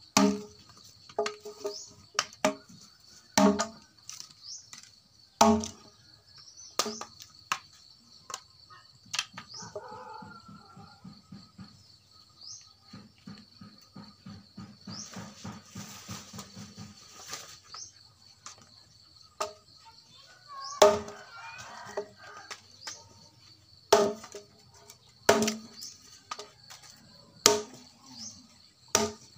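A blade chopping into dead wood: single sharp strikes at irregular intervals, with a long pause in the middle before the chopping starts again. A steady high insect trill, like a cricket, runs underneath.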